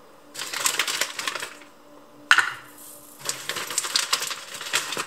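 A plastic bag of frozen gyoza dumplings rustling and crinkling in two stretches as the dumplings are taken out. A little over two seconds in there is one sharp knock as a frozen dumpling is set down in a nonstick frying pan.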